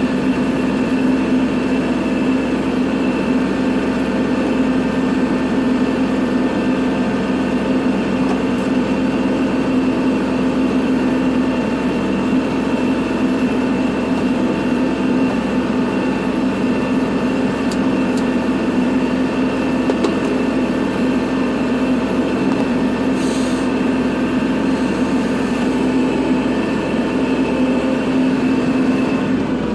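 Kubota tractor's diesel engine running steadily at a constant speed while plowing snow.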